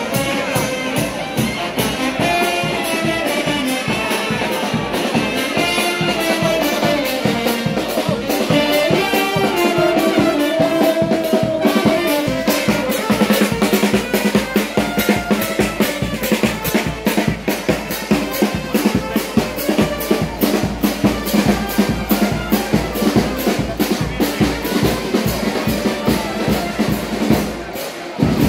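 Brass band playing, a brass melody carried over a steady drum beat.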